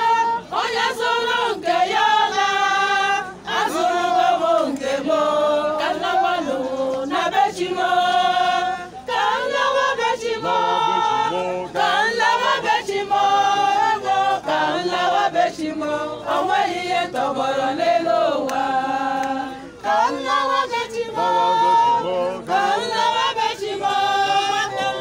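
Catholic church choir singing together at a funeral, women's voices to the fore, in short phrases that rise and fall.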